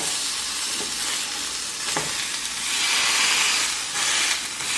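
Turkey breast pieces sizzling in oil on a flat nonstick griddle, a steady hiss that swells a little past the middle. There is one light tap about two seconds in.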